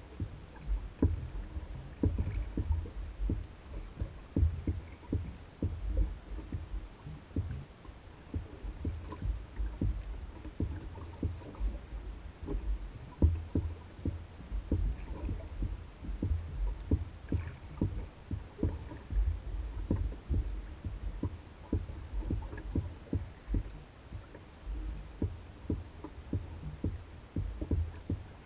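Small waves lapping and slapping against the hull of an Old Town Guide 119 canoe as it bobs on the water, a steady stream of soft irregular knocks over a low rumble.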